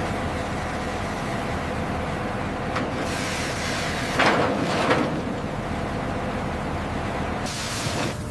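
Heavy machinery running with a steady hum, and two louder rushing noises about four and five seconds in.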